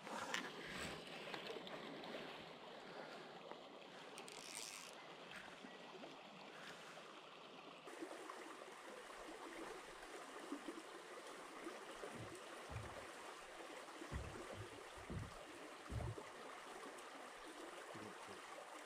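River water running and trickling steadily, soft and low in level, with a few short low thumps in the second half.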